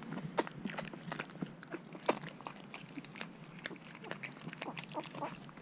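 Twelve-day-old Shar Pei puppies suckling at their mother's teats: an irregular run of short sucking and smacking clicks, several a second.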